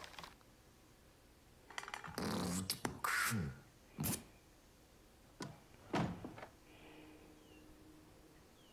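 Sound effects from an animated short's soundtrack: a few separate thuds and short noises, starting about two seconds in, with quiet gaps between them and a faint steady tone near the end.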